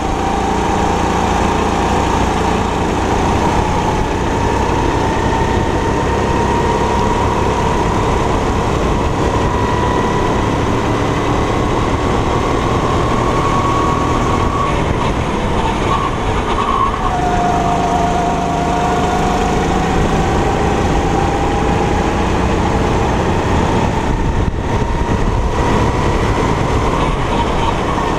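A 270 cc four-stroke go-kart engine running hard from the driver's seat. Its note climbs slowly as the kart gathers speed, falls sharply about seventeen seconds in as the driver lifts off for a corner, then climbs again, over a constant rumble.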